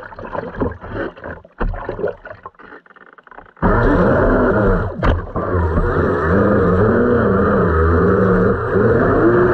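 Pro Boat Blackjack 29 RC catamaran heard from on board: choppy water sounds while it wallows slowly in the waves, then about three and a half seconds in the brushless electric drive comes on hard, a loud motor whine rising and falling in pitch with the throttle over rushing water.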